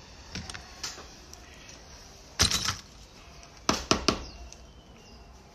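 Hand-welting thread being drawn through the leather welt and insole and pulled tight by hand, in short sharp zips and snaps: a loud burst about two and a half seconds in and three quick pulls near four seconds, with lighter clicks near the start.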